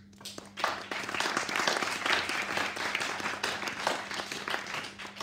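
Small audience applauding: the clapping starts about half a second in, holds through the middle and dies away near the end.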